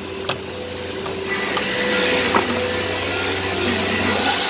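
Electric sliding compound miter saw running as it crosscuts a wooden furring strip, a steady motor sound that builds over the first second or so.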